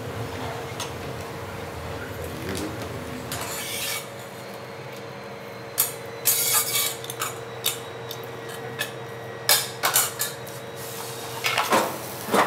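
Steel ladles and spoons clinking and scraping against stainless-steel cooking pots in a run of sharp clinks through the second half. Under them is a steady low hum, with soft stirring noise at the start.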